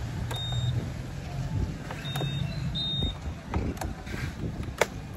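A motorcycle's anti-theft alarm being disarmed: three short, high, steady beeps, one about a third of a second in and two more around two and three seconds in, with a few sharp clicks.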